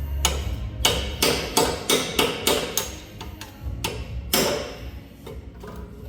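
Sharp knocks repeating every fraction of a second, growing sparser after about three seconds, with music in the background.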